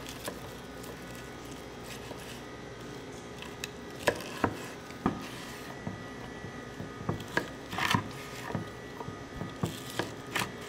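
Knife cutting through a grilled rack of lamb on a wooden cutting board. From about four seconds in come a series of sharp knocks and short scrapes as the blade and the cut chops meet the board.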